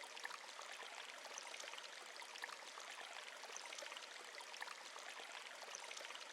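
Faint, steady sound of running water, like a stream, with small scattered splashes.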